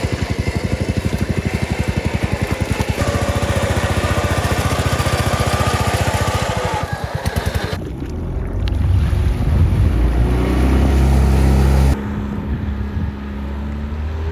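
A small engine running with a fast, even pulse for about the first seven seconds, as the riding lawn tractor backs the boat trailer in. Then the jon boat's Yamaha 20 hp tiller outboard running with a steadier, lower hum as the boat moves across the water.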